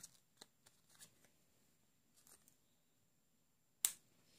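Scissors snipping a clothing tag off a cloth onesie: a few faint, scattered snips and clicks, then one sharper click near the end.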